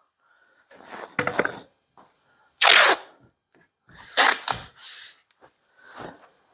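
Adhesive tape being pulled off the roll and torn off in several short, noisy bursts, the loudest near the middle; the strips hold a freshly bonded van window in place while the adhesive dries.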